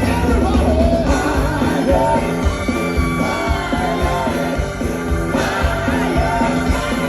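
Live funk band playing, with singing over a steady drum beat and bass.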